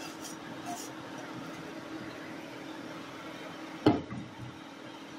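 A wooden spatula scraping fried carrot and onion out of a frying pan into a pot of soup, then stirring the soup, with one sharp knock just under four seconds in over a steady low hiss.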